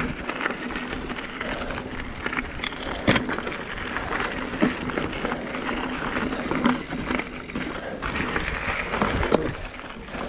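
Mountain bike riding down a dry, rocky dirt trail: tyres crunching over gravel and the bike rattling over bumps, with irregular sharp knocks.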